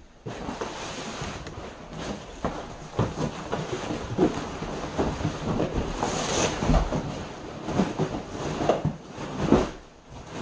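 Plastic packing sheet rustling and crinkling, with scattered knocks and bumps from furniture being handled.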